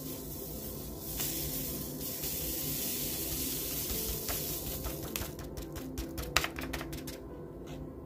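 Tiny craft beads sliding off a folded paper sheet into a jar: a steady, hiss-like trickle. Near the end it breaks into a quick patter of ticks.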